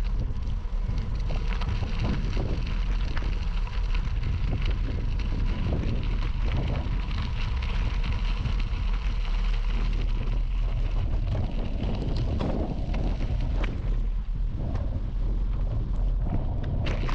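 Wind buffeting the microphone in a steady low rumble, over the continuous crackle and crunch of bicycle tyres rolling on a gravel path.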